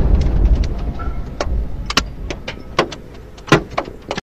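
The deep rumble of a missile explosion dying away, cut through by sharp cracks and clatters of debris, glass and window frames, landing close by. The loudest crack comes about three and a half seconds in.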